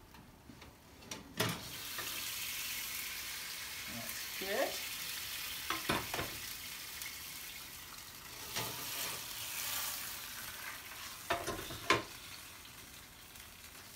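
Trout frying in a pan on a gas hob, a steady sizzle that starts about a second and a half in, with a few sharp clatters as the pan is handled.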